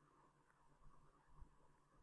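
Near silence: room tone, with a few faint ticks about a second in.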